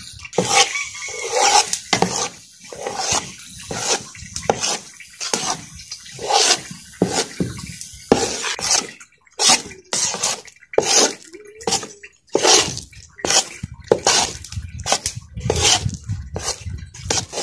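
Metal ladle stirring and scraping gram flour as it roasts in ghee in a large aluminium pot, in repeated wet strokes about two a second.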